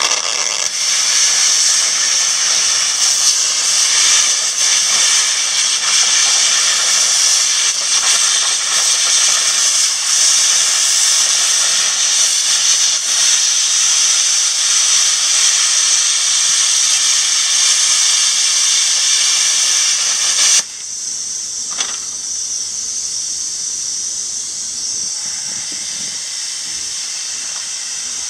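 Hand-held plasma cutter's arc cutting a circle through steel plate: a loud, steady, high hiss that cuts off suddenly about three-quarters of the way through as the circle is finished, leaving a quieter steady hiss.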